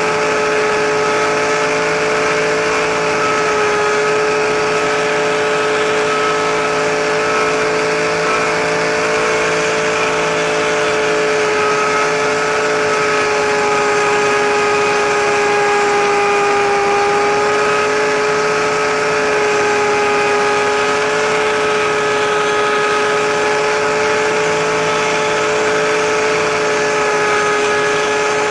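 RC helicopter's motor and rotor heard from a camera mounted on the helicopter in flight: a loud steady whine that sags slightly in pitch about halfway through and then recovers.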